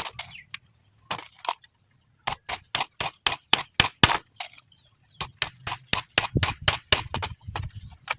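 Hammering on wood: quick runs of sharp blows, about four a second, with a short pause about two seconds in.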